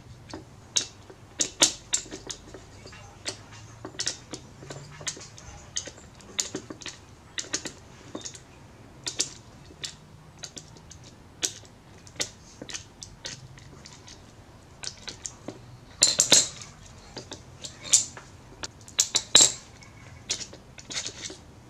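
Small steel hand tools and engine parts clicking and clinking irregularly while a 26cc two-stroke weed eater engine is unbolted and taken apart by hand, with louder clattering bursts in the last few seconds.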